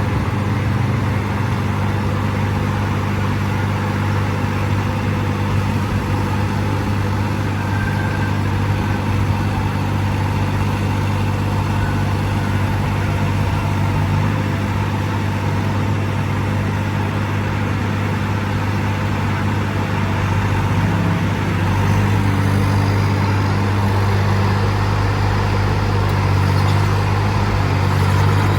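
Yanmar diesel engine of a Sunward SWE18UF mini excavator running steadily at low speed, getting slightly louder about three-quarters of the way through.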